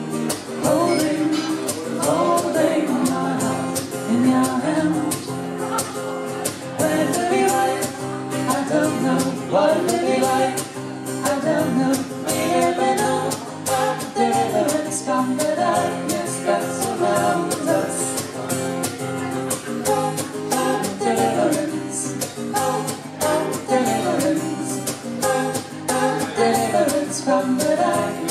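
Live acoustic song: a strummed acoustic guitar with a man and a woman singing together into microphones.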